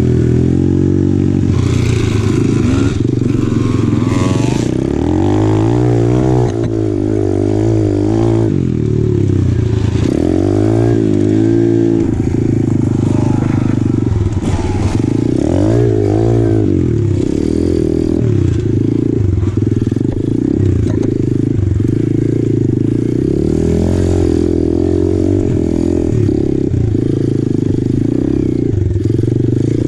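Apollo RFZ 125cc pit bike's single-cylinder four-stroke engine running under load while riding a trail, the revs rising and falling again and again as the throttle is worked.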